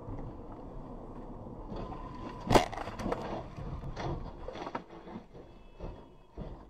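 A car crashing into the highway barrier and rolling over, heard from a following car: a loud crash about two and a half seconds in, then a run of bangs and clattering as it tips onto its roof and debris scatters, over steady road noise.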